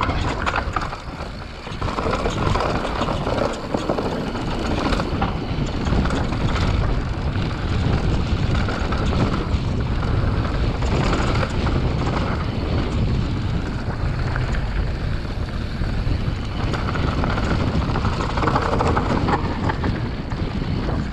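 Wind buffeting the microphone over the crunch of knobby Maxxis mountain bike tyres rolling down dirt and loose rock, with small knocks and clatters from the bike over the rough ground.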